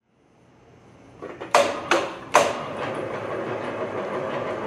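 Three-roll plate rolling machine curling 1/16-inch sheet steel into a barrel: the sound fades in, three loud metallic bangs come about a second and a half in, and then the rolls run on with a steady clattering rumble.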